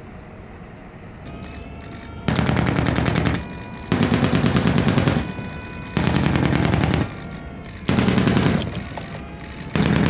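Machine gun firing five bursts of rapid shots, each about a second long and roughly two seconds apart, starting about two seconds in.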